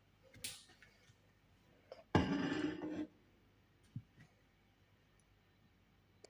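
Ingredients being handled and put into a blender jar: a sharp click, then a louder noisy sound lasting about a second, and a soft knock.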